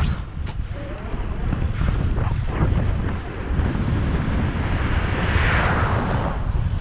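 Wind buffeting the microphone of a camera on a moving rider, a steady low rumble. About five seconds in, an oncoming car passes with a rush that swells and fades.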